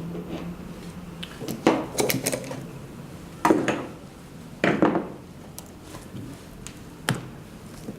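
Tools and metal parts of a heat press being handled, knocking and clinking in about five separate clatters, the loudest about three and a half and five seconds in. A low steady hum stops about a second in.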